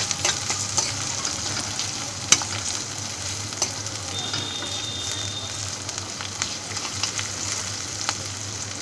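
Sliced onions, capsicum, carrot and green chillies sizzling in hot mustard oil in a metal kadhai, with a spatula scraping and knocking against the pan as they are stir-fried. The scraping thins out in the second half, leaving the steady sizzle.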